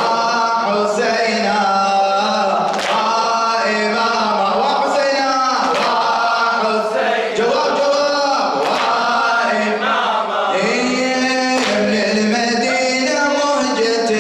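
Men's voices chanting a Muharram latmiya: a lead reciter with a group singing along, the melody held in long sustained notes. Sharp strikes mark a regular beat, the strongest about every three seconds.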